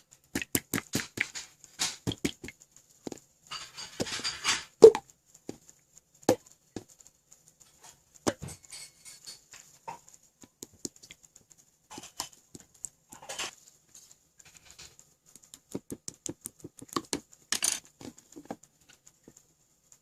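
Homemade slime being squished, stretched and poked by hand: scattered sticky clicks and pops, with a few denser runs of squelching and crackling.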